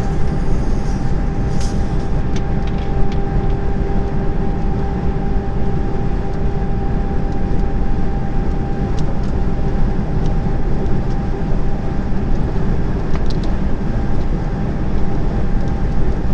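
Steady drone of a truck's diesel engine and tyre noise heard inside the cab at motorway speed, with a faint steady whine over it and a few light ticks in the first few seconds.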